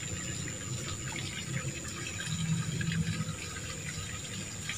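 Water trickling and flowing steadily, with a thin steady high tone over it.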